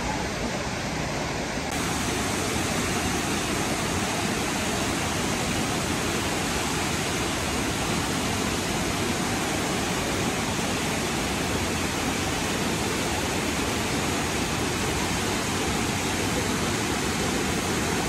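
Steady rush of a waterfall, white water cascading down a rock channel into a pool.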